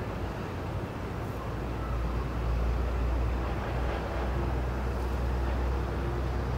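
A low, steady rumble with a wash of noise above it, growing a little louder about two seconds in.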